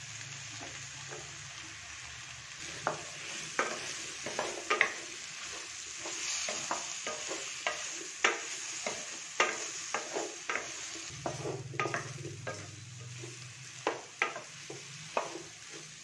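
Wooden spatula stirring diced ridge gourd in a steel kadai of frying masala. A soft sizzle runs under repeated sharp knocks and scrapes of the spatula against the pan, which begin about three seconds in.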